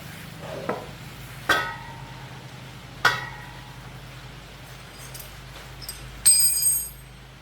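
Metal parts or tools clinking: two sharp ringing strikes, then a brighter, longer ringing clang near the end, over a steady low hum.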